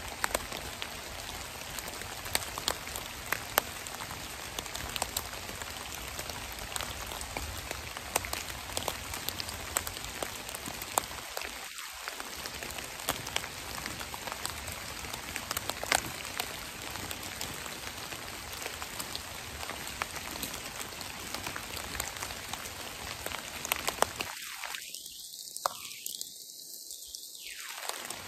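Steady rain falling on a forest floor of fallen leaves, with many single drops ticking sharply through it.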